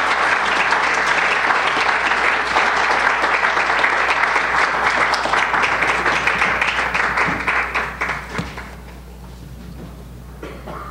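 Audience applauding, a dense patter of many hands clapping that thins out and dies away about eight seconds in.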